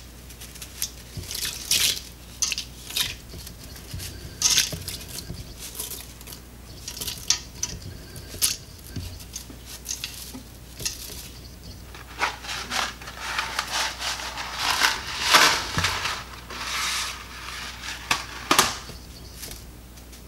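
Dry linguine snapped in half by the handful and dropped into a stainless steel Instant Pot inner pot: irregular sharp cracks and clicks as the sticks break and clatter onto the metal and each other, thickest about two-thirds of the way through.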